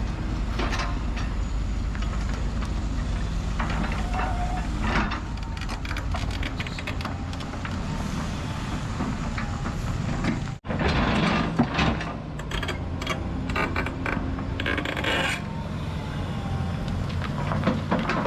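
Diesel excavator working on a road cutting: the engine runs with a steady low rumble, and after a break about halfway through there are several seconds of irregular knocks and scraping as earth and rock are dug.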